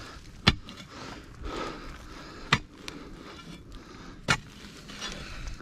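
A hand digging tool's metal head striking stony soil and rock, three sharp strikes about two seconds apart, with faint scraping of loose earth between them.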